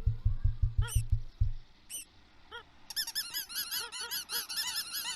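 Cartoon birds calling on an animated film's soundtrack: a quick run of low thumps in the first second and a half with a few single short calls, then from about three seconds a flock of small birds chattering over each other.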